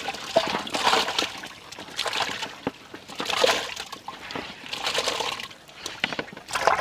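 Raw chicken pieces pushed by hand off a metal plate into a pot of water, splashing and sloshing in repeated bursts as the chicken is washed.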